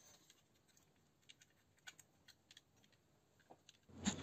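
Near silence with about a dozen faint, scattered small clicks; just before the end a low hum comes in along with a sharper click.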